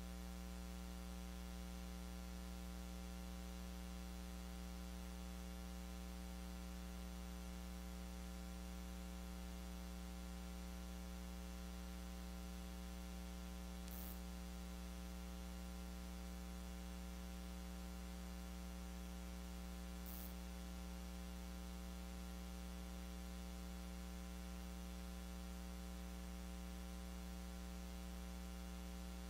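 Steady electrical mains hum: a low buzz with a stack of overtones over a faint hiss, unchanging throughout. Two faint ticks come through near the middle.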